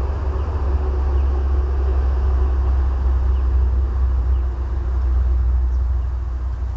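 A truck going past: a steady low rumble that grows a little louder through the middle and eases off near the end.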